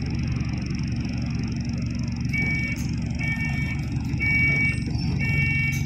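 Inside a moving bus: the steady low rumble of the engine and road, with an electronic beep that sounds four times, about once a second, starting a little after two seconds in.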